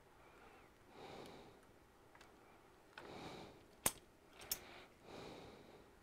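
Faint close breathing, three slow breaths. Two sharp clicks just before and after four seconds in, as a thin metal pry spatula works at the edge of the tablet's case.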